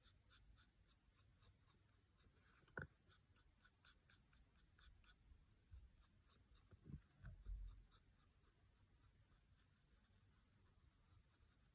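Faint, quick scratching and tapping of a brush-tip marker being stroked and dabbed over a small piece of card, several light strokes a second, with a few soft thumps along the way.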